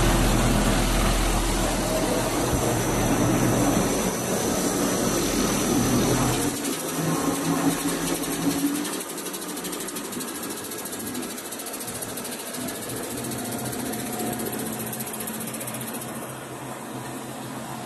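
Spindle rotary veneer peeling machine running, its electric motors and drive giving a steady mechanical whirr with a strong low hum. The low hum drops away about six seconds in, and after about eight seconds the machine sounds quieter.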